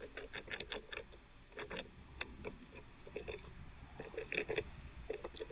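Eastern gray squirrel gnawing on hard chews with its incisors: quick, irregular scraping clicks in short clusters.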